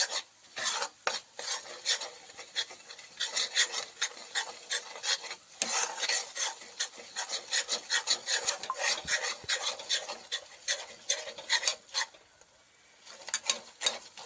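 A spatula scraping around the inside of a kadhai, stirring gram flour (besan) as it roasts in desi ghee. It goes in quick, repeated strokes, with a short pause near the end.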